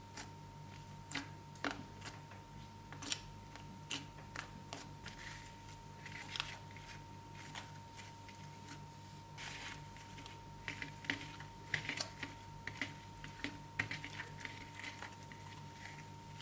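Slime being pressed and worked by hand, giving irregular sharp clicks and short crackly pops, busier in the second half.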